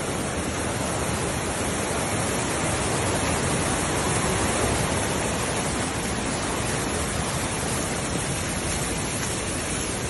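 Steady, even rush of water: heavy rain together with muddy runoff flowing down the track after a landslide.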